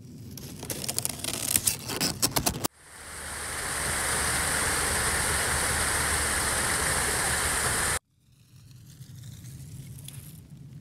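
Dry leaves rustling and crackling. After a sudden cut, a small woodland stream runs over rocks as a steady rushing hiss. That cuts off abruptly about eight seconds in, leaving a much quieter hiss with a few faint clicks.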